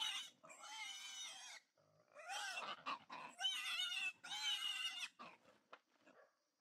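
Trapped wild boar squealing: four or five long, high squeals of about a second each, then a few short ones that die away near the end.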